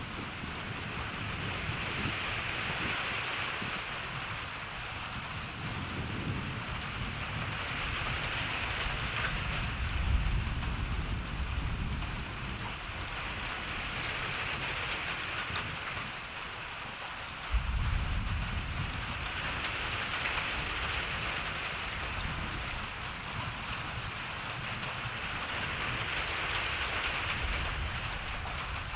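Steady rain falling, with low rolling thunder underneath; a louder thunder rumble breaks in suddenly about two-thirds of the way through and rolls on.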